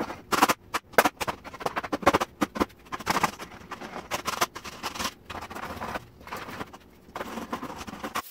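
A hammer striking old wooden fence boards in quick, irregular knocks, denting the wood to distress it and make the sign look weathered. The blows thin out after about five seconds.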